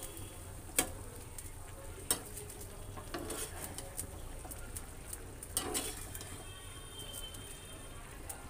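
A metal spoon stirring boiled eggs and potatoes in masala in a frying pan, over a soft steady sizzle of the cooking oil. A few sharp clinks of the spoon against the pan stand out, the loudest about a second and two seconds in.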